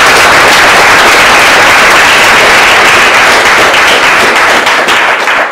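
Audience applauding, loud and dense, thinning a little near the end.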